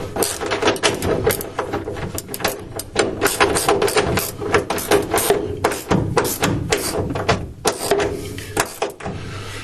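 Hand tools tightening the last bolt on an engine and gearbox mount: a run of rapid, irregular metallic clicks and knocks.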